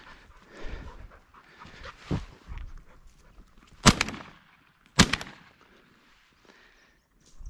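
A pointing dog panting, then two shotgun shots about a second apart.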